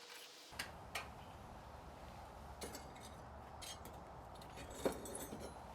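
Light metallic clinks and taps from steel pieces being handled, with the loudest clink near the end. A low steady hum starts about half a second in.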